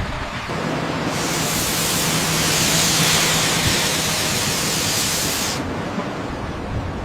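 A loud, steady hiss like spraying or escaping steam starts about a second in and cuts off sharply near the end, over a low machinery hum.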